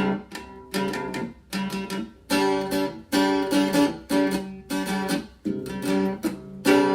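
Acoustic guitar music: chords strummed roughly every three-quarters of a second, each ringing out and fading before the next.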